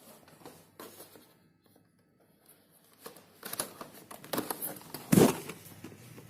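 Rustling and a few knocks of a boxed product's packaging being handled, after a quiet start, the loudest knock near the end.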